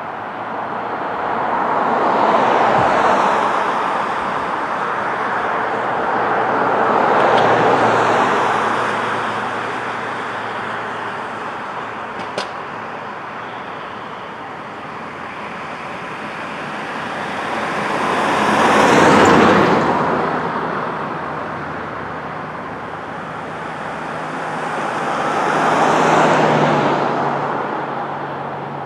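Road traffic: four vehicles pass one after another at uneven intervals, each a swell of tyre and engine noise that rises and then fades away. A brief sharp click is heard about halfway through.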